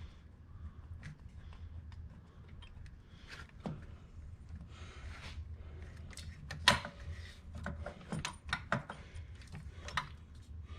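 Scattered metal clicks and clinks of bolts and hand tools being handled on a car engine, over a low steady hum. The sharpest click comes a little past halfway, with several more near the end.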